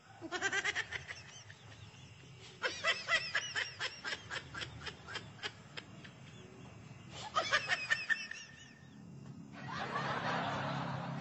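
Giggling laughter in three short bursts of quick repeated ha-ha pulses, followed by a softer, steady rushing noise in the last couple of seconds.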